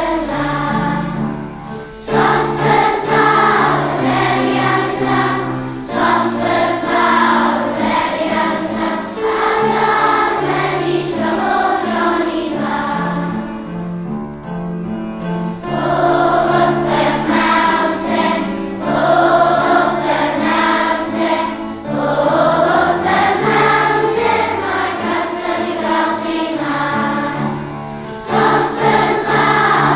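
A choir singing a song over an instrumental backing with a steady bass line, easing briefly about halfway through.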